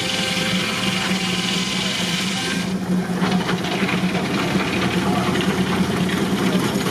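Antique steam tractor belted to a sawmill, running steadily with a constant low hum and rapid mechanical clatter. About three seconds in, the high hiss falls away and a fast, fine ticking takes over.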